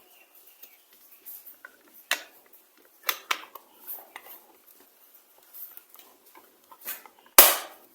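Hard plastic clicks and knocks from handling a DT830D digital multimeter's case while its 9-volt battery is fitted and the back is closed, with one louder knock near the end.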